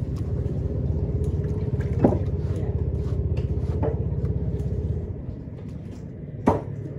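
Steady low rumble throughout, with two sharp knocks on a wooden chopping block as a tuna is cut and handled, one about two seconds in and one near the end.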